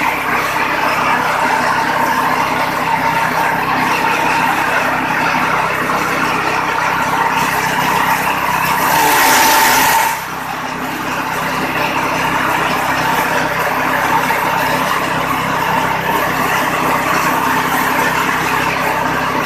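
Motor-driven straw chopper (chaff cutter) running steadily with a constant mechanical drone. About eight and a half seconds in, a load of dry straw goes through the blades with a louder hissing rush and the motor's pitch sags under the load, then it settles back to steady running about ten seconds in.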